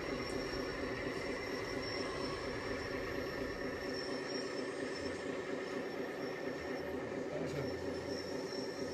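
Radio-controlled model machinery running steadily: a continuous mechanical drone with a thin high whine on top, typical of small electric motors and plastic or metal gearboxes driving RC construction models.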